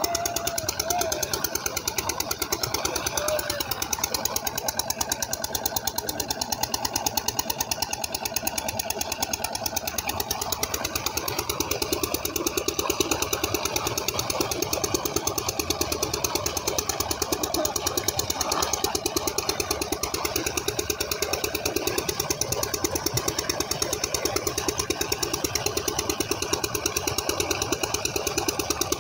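Stationary diesel engine driving a tube-well pump, running steadily with an even, rapid thudding beat, over water gushing from the outlet pipe into a concrete tank.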